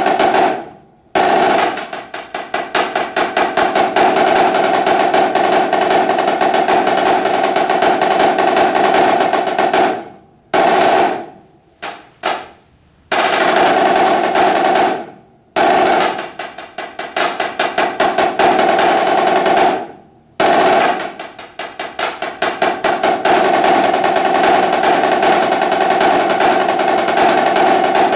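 Yamaha marching snare drum played solo with sticks: long passages of rapid strokes and rolls with accents, broken by several short pauses, the drum's tone ringing through.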